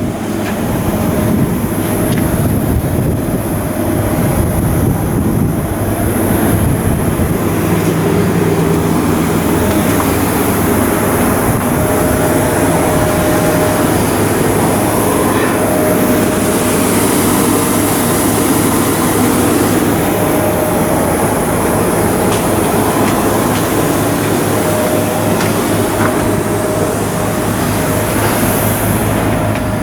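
Steady, loud shipbuilding machinery noise with a constant low hum and a faint whine that comes and goes.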